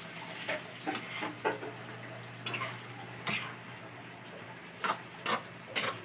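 A metal spatula scraping and knocking against a wok as crispy fried tofu cubes are stirred, in irregular strokes about one or two a second, over the low sizzle of the frying tofu.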